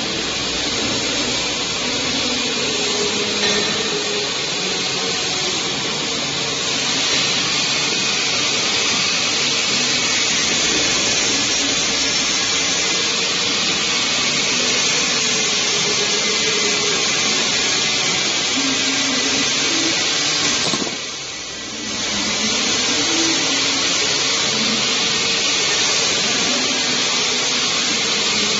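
Automatic bottle labeling machine running: its motors and conveyor make a steady whirring hiss that dips briefly about 21 seconds in.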